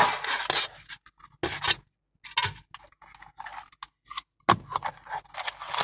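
Scraping and rustling as a styrofoam liner lid is pulled out of a cardboard shipping box and the crumpled kraft packing paper beneath is handled, in several short bursts with brief pauses.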